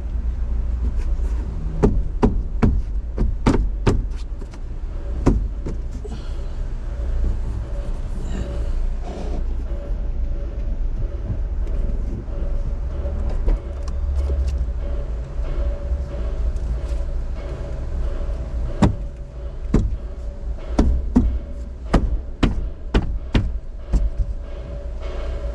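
Sharp knocks and clicks of an SUV's interior headliner and trim being pushed back into place, in clusters early on and again near the end, over a steady low hum.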